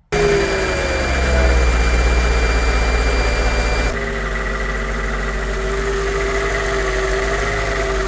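Mercedes-Benz CLK 500's M113 V8 idling steadily, having fired on the first start; its revs ease down a little in the first second. The sound shifts abruptly about four seconds in, then the idle carries on steady.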